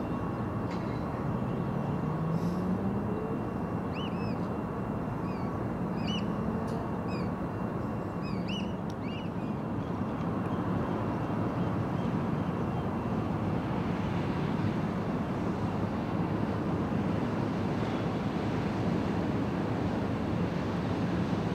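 Steady low waterfront rumble of engines and wind, with a run of short, high chirping bird calls between about four and nine seconds in.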